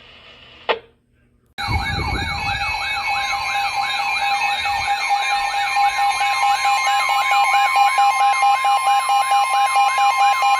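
Emergency Alert System attention signal: a loud, steady two-tone alarm with a siren-like tone sweeping up and down about two to three times a second over it. It starts abruptly about a second and a half in, after a click and a moment of silence, and heralds the next severe thunderstorm warning.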